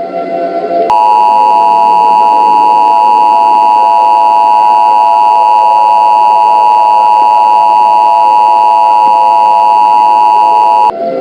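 Emergency Alert System attention signal: a loud, steady two-pitch alert tone that starts about a second in and cuts off sharply near the end, over a fainter low background sound.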